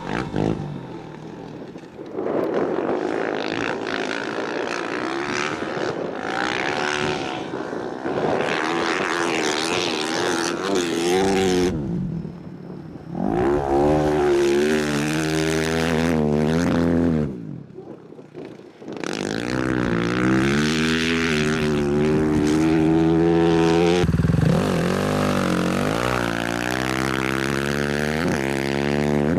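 KTM 450 Rally motorcycle's single-cylinder engine revving up and down as it is ridden hard through soft sand, the pitch rising and falling repeatedly. The engine note drops away briefly about twelve seconds in and again around eighteen seconds.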